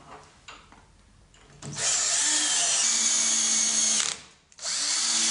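Cordless drill-driver driving screws through a metal bracket into a wooden door edge, its motor whining steadily in two runs: one of about two seconds, then after a brief stop a second run starting just before the end.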